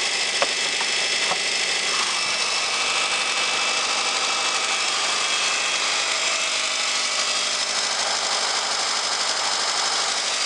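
Subaru EJ25 2.5-litre flat-four (boxer) engine idling steadily, heard over the open engine bay, with one light click about half a second in.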